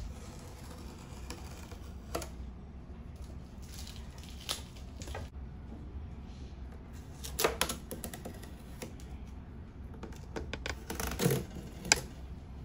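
Adhesive tape strips being peeled off the stainless steel housing of an air fryer by hand: scattered light clicks and scrapes, in a denser cluster about seven and a half seconds in and again near the end, over a low steady hum.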